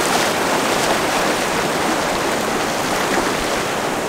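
Ocean surf breaking and washing over the shallows, a steady rush of water.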